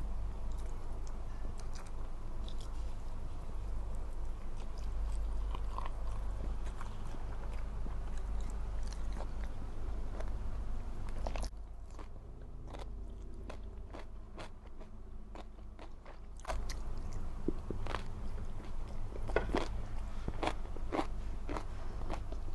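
Close-miked eating sounds: a person biting and chewing food with crunches and wet clicks, over a steady low hum.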